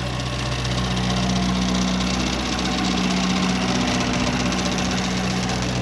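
A steady, engine-like motor hum that grows a little louder after about a second, with no gunshots.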